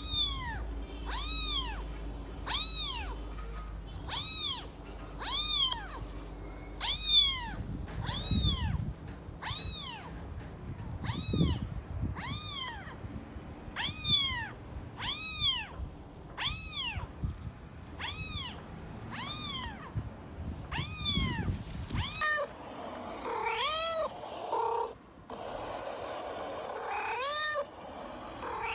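Cat meowing over and over, each meow a short high call that rises and falls, about one every second and a half. A little after twenty seconds the meows turn lower and rougher and come less regularly.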